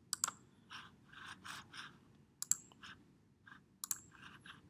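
Computer mouse clicks, a pair near the start, one about halfway and another pair near the end, with softer keyboard taps between them.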